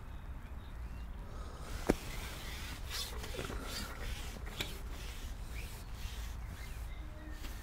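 Fishing pole being drawn back, rubbing and scraping as it slides, with one sharp click about two seconds in and a few softer knocks after it.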